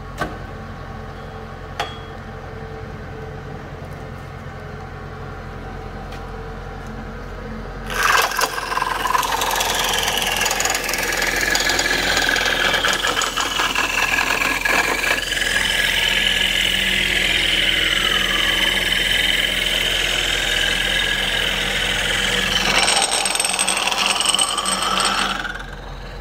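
Dowel-making machine running steadily with a low hum; about eight seconds in, a length of wood goes through the spinning cutter head and a loud, rough cutting noise with a wavering whine takes over, stopping shortly before the end.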